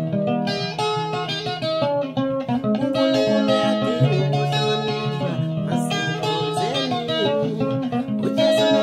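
A man singing a slow song to his own acoustic guitar, the guitar played in chords with a capo on the neck.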